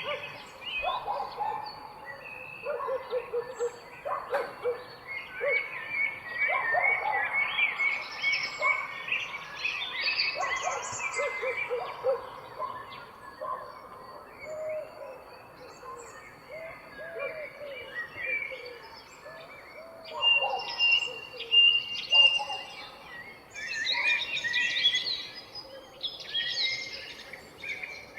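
Several birds singing and calling at once, a dawn-chorus mix of quick high chirps and whistled phrases with lower, rounded calls among them.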